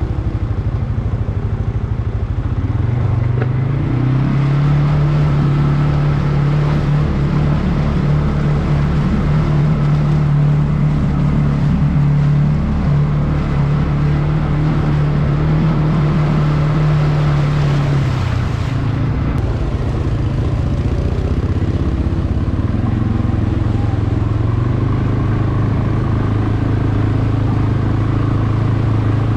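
CFmoto CForce 520 ATV's single-cylinder engine running under throttle. Its pitch rises a few seconds in and holds steady, falls back about two thirds of the way through, then climbs again near the end.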